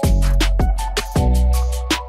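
Background electronic music with a heavy bass line, held synth tones and a punchy drum beat.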